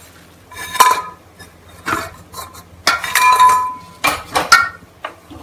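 Stainless steel cookware clanking: about five sharp metal knocks as the pressure cooker, its lid and a utensil are handled in a steel tub, one of them about three seconds in ringing on briefly.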